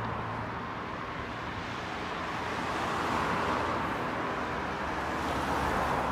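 Steady road traffic noise with a low engine hum underneath, even throughout with no distinct events.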